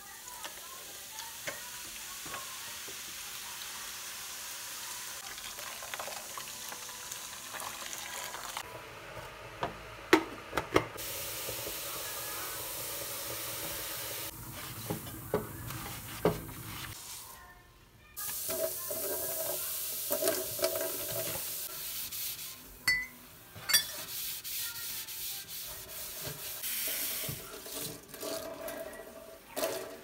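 Clear liquid poured from a plastic bottle into a plastic bowl of black stove grates and burner caps, a steady hiss for about the first nine seconds, followed by a few sharp knocks. After a short break, a wet sponge scrubs and rubs a chrome kitchen faucet.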